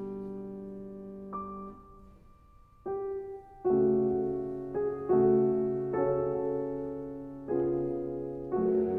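Slow, gentle piano music: sustained chords struck about once a second and left to fade, with a brief near-quiet pause about two seconds in.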